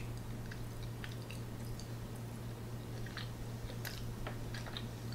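Mouth sounds of someone chewing chicken wings close to the microphone: soft, irregular small clicks and smacks over a steady low hum.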